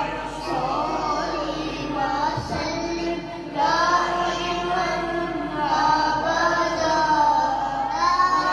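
A boy singing a naat, an Urdu devotional poem in praise of the Prophet, solo into a microphone. He sings in long, drawn-out phrases that bend in pitch, and a new, louder phrase begins about a third of the way in.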